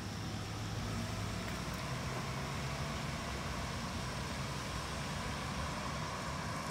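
Cars idling in a queue of stopped traffic, a low steady engine hum with an even hiss over it.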